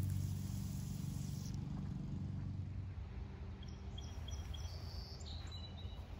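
Spray from a pop-up lawn sprinkler hissing over the grass, cutting off about a second and a half in, under a low hum. Birds then chirp in short, high calls near the end.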